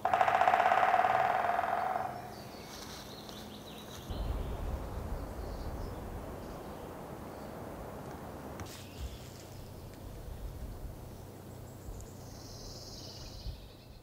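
White-backed woodpecker drumming: a loud, rapid roll of knocks lasting about two seconds and fading out. After it comes a low rumble, with a short high bird call near the end.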